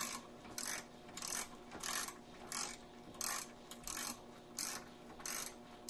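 Ratchet wrench clicking in short, even strokes, about one every two-thirds of a second, as it backs out a radiator retaining bolt.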